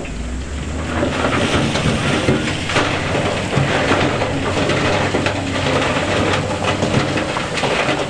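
A mass of big stones crunching and tumbling as heavy machinery moves them: a dense clatter of rock over the low hum of a diesel engine. It builds over the first second and keeps up throughout.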